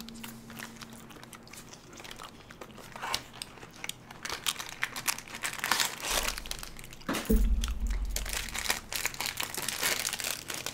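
Ice cream bar wrapper crinkling and crackling as it is peeled open, heavier in the second half, with bites into ice cream and cones mixed in.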